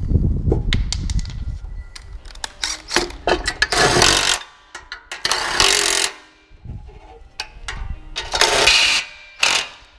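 Cordless impact driver with a long socket running nuts onto studs in several short bursts of rapid hammering, with clicks and rattles between them. The nuts are being tightened down to secure a belt guard.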